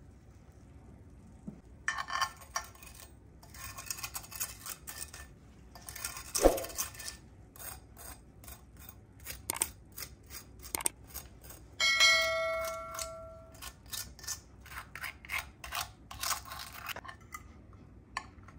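Metal fork and spoon scraping and tapping in a glass baking dish, crackling through the crisp baked parmesan crust: a quick run of sharp clicks and crunchy scrapes, with one hard knock about six seconds in. About twelve seconds in, a single ringing chime fades away over a second or so.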